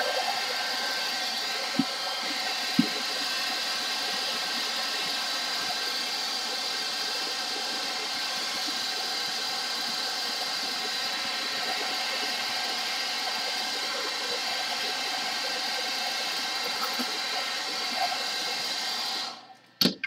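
Handheld hairdryer running steadily, a rush of air with a faint motor whine in it, blowing onto a diamond-painting canvas to flatten its folds. Two light clicks come about two and three seconds in, and the dryer is switched off shortly before the end.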